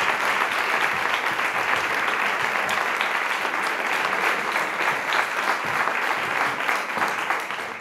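Audience applauding steadily, many hands clapping at once, fading near the end.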